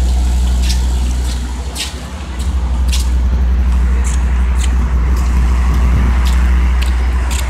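Street sounds heard while walking beside a city road: traffic passing on the road and a strong steady low rumble on the microphone. Sharp short ticks come about twice a second, at walking pace.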